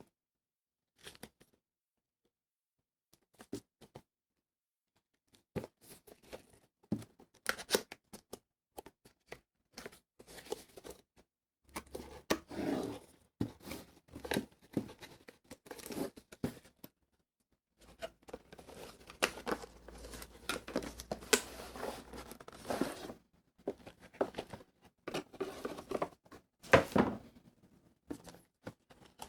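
Packaging being handled and unwrapped by hand: a few scattered taps and clicks at first, then crinkling and tearing of plastic wrapping in three long stretches, with sharp clicks among them.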